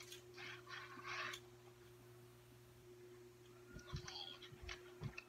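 Near silence: room tone with a faint steady hum, a faint rustle in the first second or so, and a few faint low thumps and distant sounds near the end.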